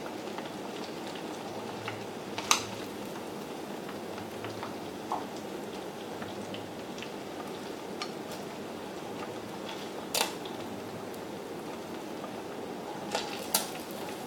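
Breaded squid frying in hot oil in a frying pan: a steady sizzle, with a few sharp clicks of chopsticks against the pan.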